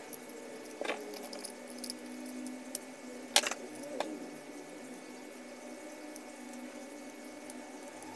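Small sharp clicks of a handheld two-way radio's casing, screws and a screwdriver being handled during reassembly: three clicks, about a second in and around three and a half and four seconds in, over a faint steady hum.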